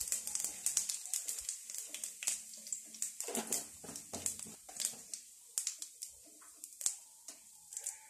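Cumin and mustard seeds crackling in hot oil in a pan: scattered sharp pops over a faint sizzle, coming thick at first and thinning out after about five seconds.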